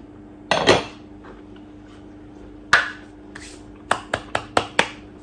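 Cutlery knocking against a plate while eating: two short scraping sounds, then a quick run of about six sharp clicks near the end.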